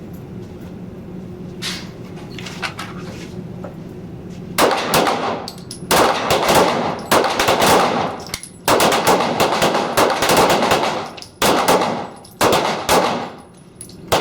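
Several pistols firing at once along a firing line during a timed six-round string: shots overlap into rapid, ragged volleys starting about four and a half seconds in, with a few short pauses, after a couple of faint single shots earlier.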